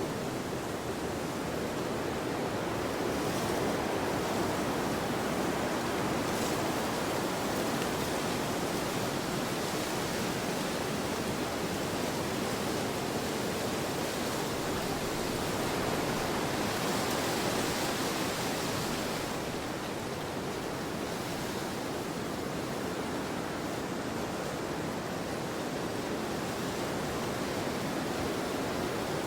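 Wind blowing as a steady, soft rush, with a few hissier gusts. The strongest gust comes about two-thirds of the way through, and the wind eases slightly just after it.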